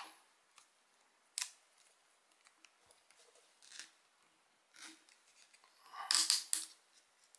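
A mini tripod being screwed onto a webcam's base: small plastic-and-metal handling noises, a few short scrapes and clicks, the loudest a quick run of scrapes near the end.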